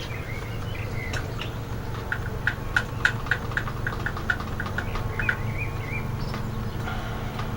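A run of short, even clicks, about four a second for some three seconds, as a fitting is turned tight with a tool on an air compressor's new pressure regulator. Short bird chirps come near the start and again near the end, over a steady low hum.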